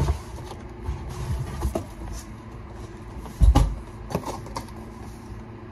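A cardboard box being handled close to the microphone: knocks, scrapes and rustling of cardboard, with a sharp knock at the start and a heavy thump about three and a half seconds in.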